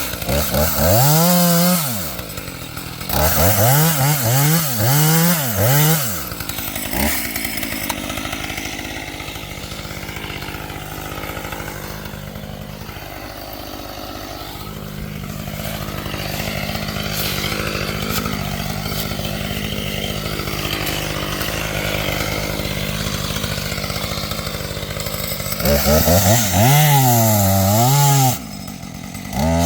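Husqvarna T540XP top-handle two-stroke chainsaw revved up and down in several quick throttle bursts, then running steadily at a lower speed, then revved again several times near the end.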